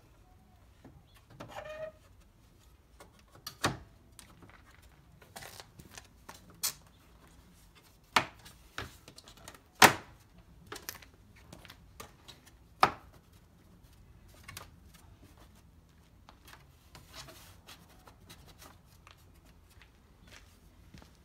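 Plastic front grille of a Suzuki Wagon R being pressed on by hand: several sharp clicks and snaps as its clips push into place, the loudest about ten seconds in, with rubbing and handling of the plastic between them.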